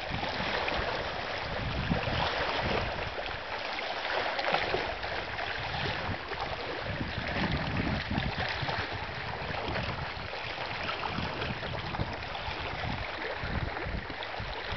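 Small waves lapping against shore rocks at high tide, a steady wash of water, with irregular low gusts of wind buffeting the microphone.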